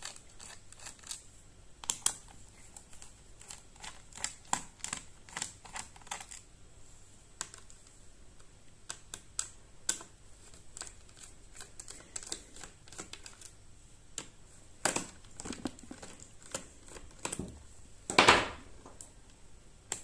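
Phillips screwdriver loosening the bottom-cover screws of a Dell Latitude 7290 laptop: light, irregular clicks and small scrapes as the bit turns in each screw, which is left held in the cover. Near the end comes one louder scrape lasting under half a second.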